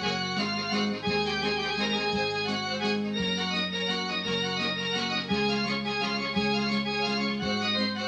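Portable electronic keyboard played with an organ voice: a melody over sustained chords, with the bass note changing every second or so.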